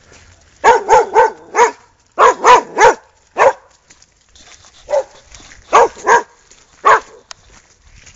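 A 13-month-old female Cane Corso barking: about a dozen short barks in clusters of one to four, each bark rising and falling in pitch.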